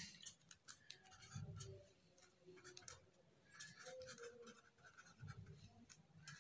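Faint squeaks and scratches of a felt-tip marker writing on paper, in short strokes.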